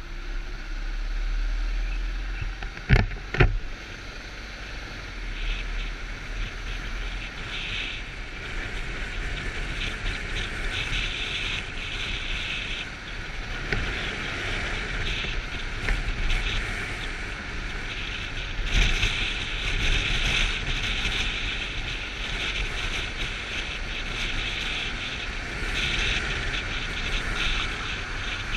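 Motorcycle riding through traffic as heard from a GoPro on the bike: engine running under steady wind rush over the camera microphone, the rush swelling and easing with speed. Two sharp knocks about three seconds in.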